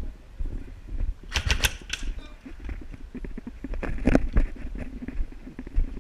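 Footsteps and gear knocking against a body-worn action camera as an airsoft player moves, with two quick runs of sharp clicks, one about a second and a half in and another about four seconds in.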